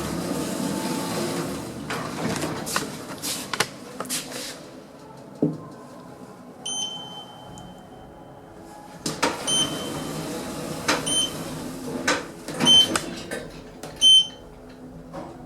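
Schindler 3300 lift's keypad beeping as floors are keyed in: one long electronic beep about halfway through, then four short beeps with clicks about a second and a half apart. Before them, in the first few seconds, there is rustling with several knocks.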